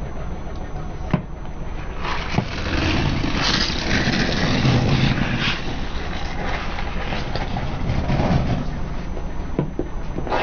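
A car tyre rolls slowly over hard plastic Mentos gum bottles and crushes them. There are a few sharp cracks, then several seconds of crackling and crunching plastic under the wheel, over the low sound of the car.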